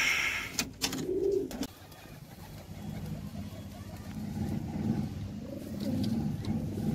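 Domestic pigeons cooing, a low wavering coo that repeats through the second half. At the very start comes a short scraping rustle of a board being set on the nest shelf.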